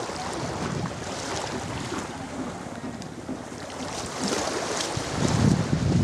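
Wind buffeting the microphone over the wash of small sea waves on the shore. The wind rumble grows much louder about five seconds in.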